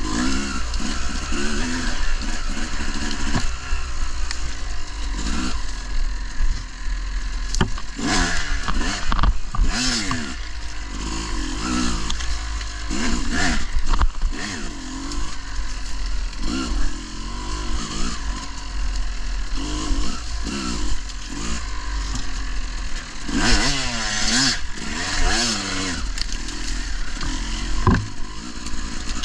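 Dirt bike engine being ridden, revving up and dropping back over and over as the throttle opens and closes through the turns, over a steady low rumble.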